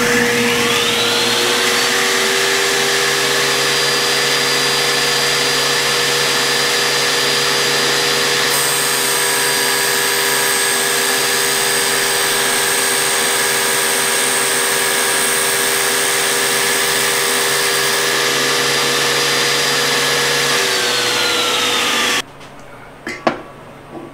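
Table saw with a 3/8-inch dado stack spinning up and running steadily, its whine rising in pitch over the first two seconds. For about ten seconds in the middle a higher hiss is added as the stack is raised up through a 3/16-inch luan throat plate. The saw is then switched off and winds down, and a single sharp click follows near the end.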